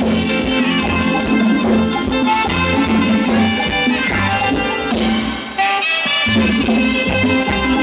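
Live tropical dance orchestra playing, with keyboard, bass guitar and Latin percussion. About five seconds in, the bass and drums drop out for about a second, then the full band comes back in.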